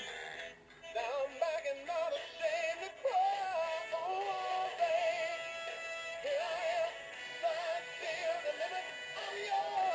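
Animated plush monkey toy playing its song: a synthetic-sounding sung voice with wavering notes over music.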